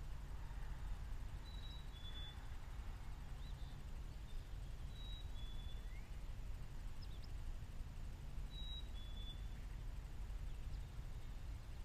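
A songbird whistling a clear two-note call, the second note slightly lower than the first, three times about three to four seconds apart, over a steady low rumble.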